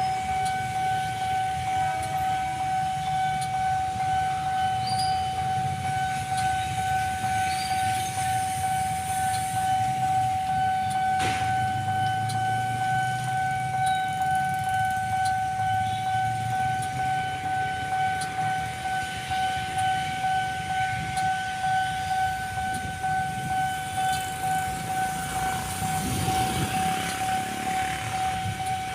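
Railway level crossing warning alarm sounding one steady, unbroken electronic tone that pulses quickly in loudness, over a low rumble.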